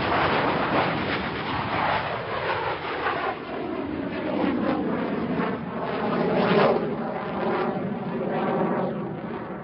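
Jet aircraft sound effect: a continuous rushing jet noise with a shifting whine that swells and eases, loudest about six and a half seconds in.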